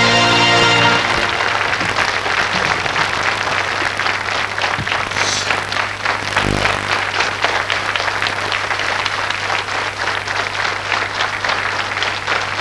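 A studio audience applauding, a dense, steady clatter of many hands, after a music cue cuts off about a second in. A low steady hum runs underneath.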